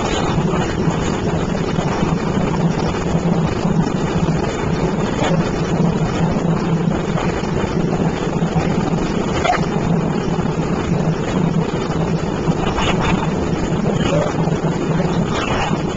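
An engine on the boat running steadily: a constant low hum with noise over it, with a few faint ticks.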